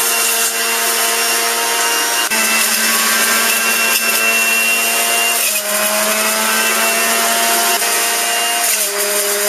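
Breville Juice Fountain centrifugal juicer running at full speed as peaches are pushed down its feed chute: a loud, steady motor whine that shifts in pitch a few times, about two, five and a half and nine seconds in, as fruit hits the spinning cutter.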